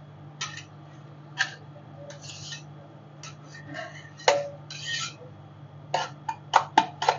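Metal spatulas tapping and scraping on a rolled-ice-cream cold plate: a string of sharp clicks and clanks with a few short scrapes, the loudest clank about four seconds in and several quick ones near the end, over a steady low hum.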